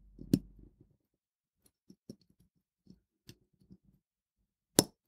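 Seiko 6106 cannon pinion being pressed onto the centre wheel post with tweezers: a run of small metal clicks, with a sharp one about a third of a second in and the loudest near the end.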